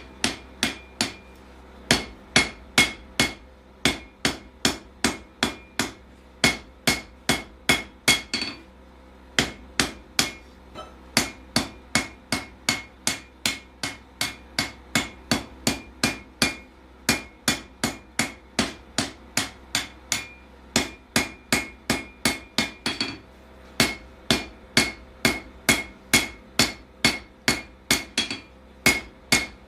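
Hammer blows on hot steel on an anvil while forging a froe, a steady run of about three ringing strikes a second. The run breaks off briefly twice.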